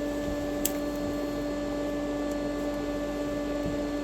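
A steady mechanical hum with a clear drone in it, like a running motor or fan, with one sharp click about two-thirds of a second in.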